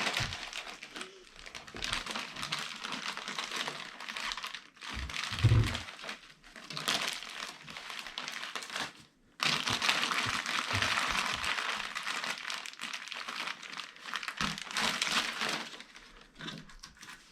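Plastic packaging crinkling and rustling as it is handled and pulled away, in long stretches with short pauses, and one dull thump about five and a half seconds in.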